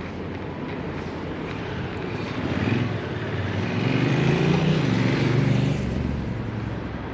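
An engine passing by, swelling to its loudest about four to five seconds in and then fading, over steady outdoor background noise.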